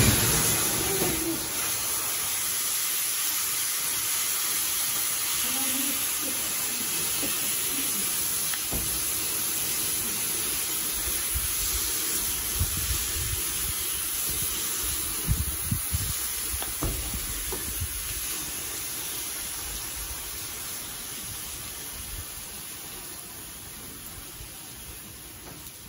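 Car fire burning: a steady hiss and crackle of flames, with a few small pops and some low thumps in the middle. It comes in suddenly and loud at the very start, then slowly fades toward the end.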